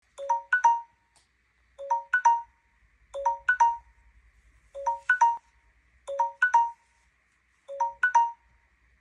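Smartphone timer alert ringing at the end of a countdown: a short phrase of rising chime notes, repeated about every second and a half.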